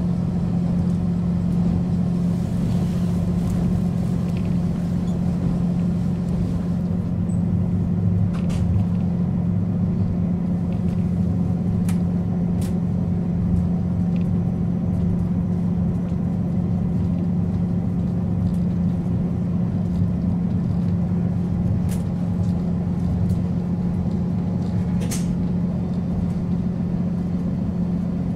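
JR Hokkaido KiHa 40 series diesel railcar idling at a standstill: a steady low engine hum with a few faint ticks.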